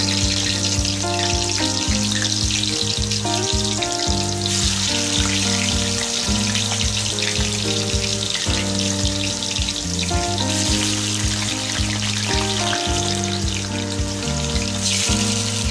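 Tofu cubes deep-frying in hot oil, a steady sizzle, with background music playing over it.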